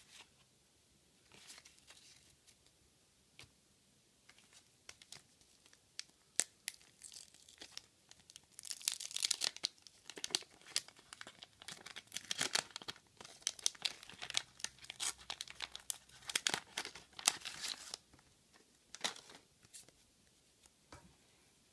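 Pink waxed-paper wrapper of a 1985 Garbage Pail Kids pack being torn open and crumpled. The crackling is densest from about eight to eighteen seconds in. Before and after it there are lighter clicks and rustles of the trading cards being handled.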